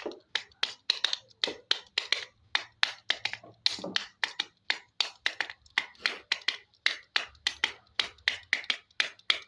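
A steady run of sharp clicks or taps, about three or four a second, in an even rhythm.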